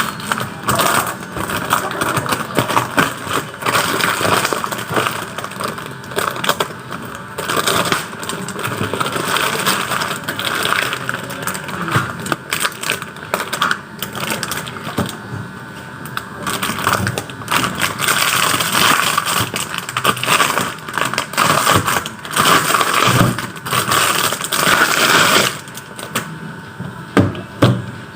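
Packaging being handled while a two-tier shelf is unboxed: dense crinkling and rustling with many small cracks and knocks.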